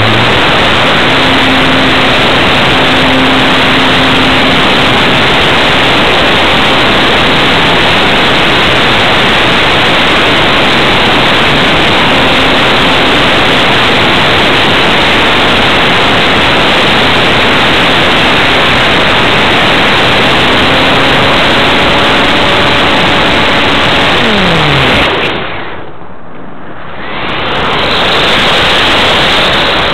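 Loud rushing airflow over the onboard camera of a ParkZone Radian electric glider in flight, with the faint steady whine of its brushless motor and propeller beneath. Near the end the motor's pitch falls away as it is shut off, the rush dips for a couple of seconds, then builds again as the glider dives.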